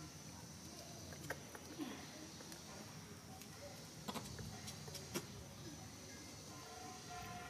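Faint outdoor background: a steady high-pitched hum under a low hiss, with a few soft clicks scattered through.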